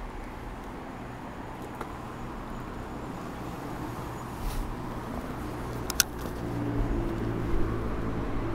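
Road traffic crossing the bridge overhead: a steady rumble of passing vehicles that grows louder with an engine hum over the last two seconds. A single sharp click comes about six seconds in.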